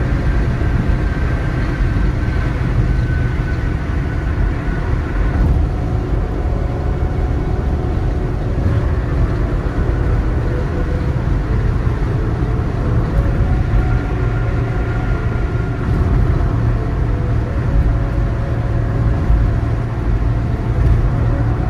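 Steady road and engine noise of a car cruising on a highway, heard from inside the cabin: a continuous low rumble of tyres and engine without breaks.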